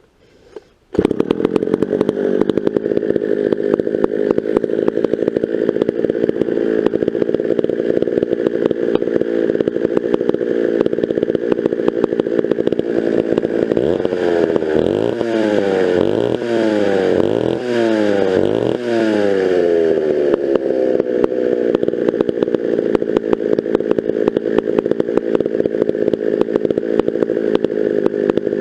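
Vintage McCulloch 650 chainsaw's 87 cc two-stroke reed-valve engine, which comes in abruptly about a second in and then runs steadily. In the middle it is revved about four or five times in quick succession, the pitch sweeping up and falling back each time, before it settles back to a steady run.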